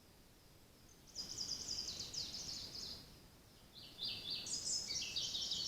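Songbird singing in a forest: two loud phrases of rapid, high, trilled notes, the first starting about a second in and the second just before the end, with a fainter distant bird repeating a short note in the first second.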